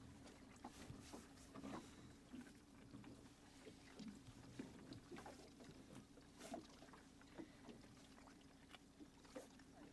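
Near silence: soft scattered clicks and taps of hands working a hook free from a fish's mouth in a landing net, over a faint steady low hum.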